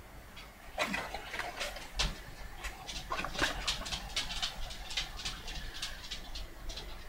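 Thin cardboard packaging and a folded paper insert rustling and crinkling as they are handled and unfolded: a string of irregular small crackles and clicks.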